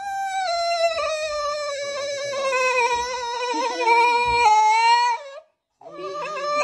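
French bulldog howling: one long drawn-out call of about five seconds that slowly sinks in pitch, then a short break and a second howl starting near the end.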